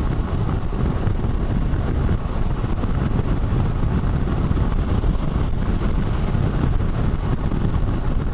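Steady wind rush and road noise from a Kawasaki Versys 650 motorcycle riding at cruising speed, with its parallel-twin engine running underneath.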